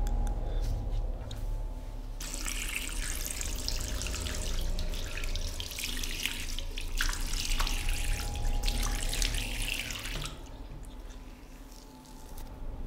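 Water running steadily, starting about two seconds in and stopping about ten seconds in, over a low steady hum.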